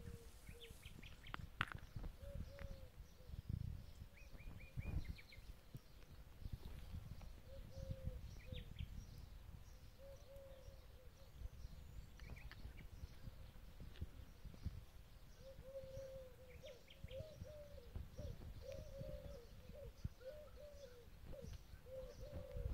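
Faint birdsong in open countryside: short high chirps and a repeated lower call that grows more frequent in the second half, over a low, uneven rumble.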